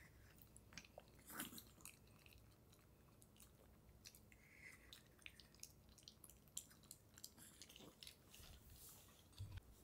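Faint, irregular clicks and crunches of small Pomeranians chewing pieces of sweet potato.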